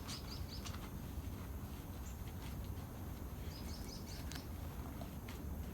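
Faint bird chirps in a couple of quick short series over a steady low background hum.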